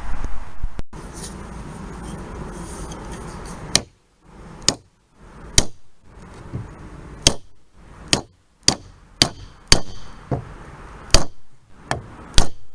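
Hammer blows: about a dozen sharp strikes at an uneven pace, starting a few seconds in, some with a short metallic ring.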